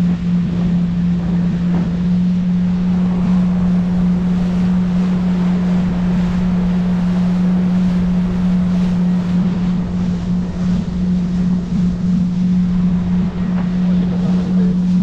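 Jet ski engine running steadily at an unchanging pitch, with wind rumbling on the microphone and water rushing underneath.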